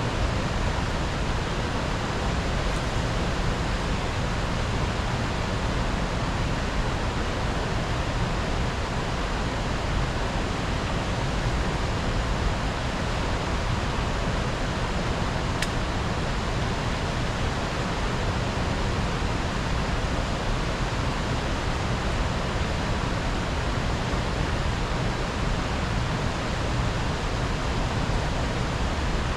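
Steady, loud rush of fast-flowing river water, unchanging throughout, with one faint click about two-thirds of the way through.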